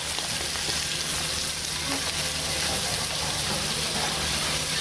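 Pomfret fish frying in hot oil in a wok, with a steady sizzle.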